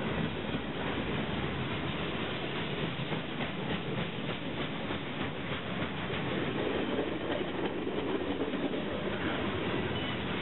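Freight cars of a CSX mixed freight train rolling past close by: a steady rumble of steel wheels on rail with repeated clacks as the wheels cross rail joints.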